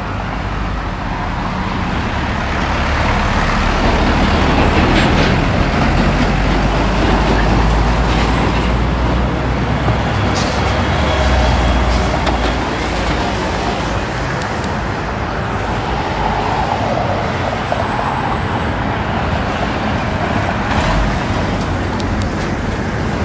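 Street traffic, with a heavy vehicle passing: a low rumble that builds over the first few seconds and eases off after about twelve seconds, over a steady wash of road noise.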